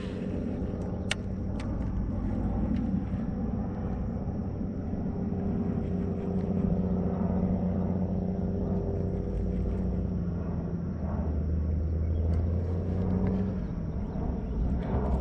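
A steady low mechanical hum with a deep rumble underneath, and a sharp click about a second in.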